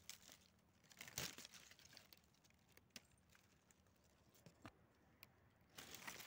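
Faint rustling and crinkling, with a few scattered light clicks and a slightly louder rustle near the end.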